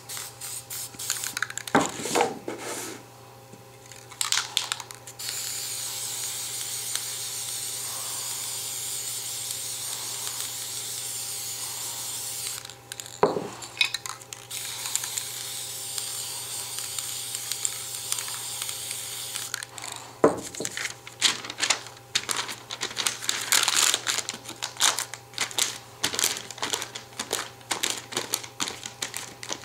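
Aerosol spray-paint can spraying in two long steady hisses, with a few knocks and clatter before them. From about two-thirds of the way through, the hissing stops and paper crinkles and crackles as crumpled paper is pressed onto the wet paint.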